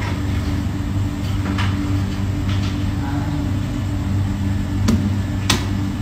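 A steady low hum, with a few sharp clicks.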